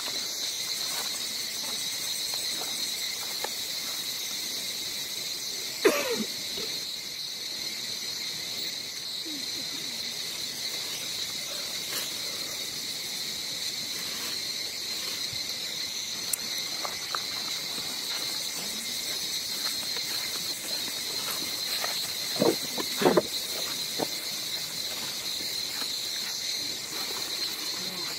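Steady insect chorus, a high drone in the forest. Two short falling calls stand out, one about six seconds in and another near the end.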